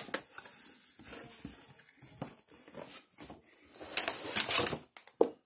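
Cardboard box being opened by hand and the drill and its power cord lifted out: irregular rustling, scraping and small clicks, busiest about four seconds in.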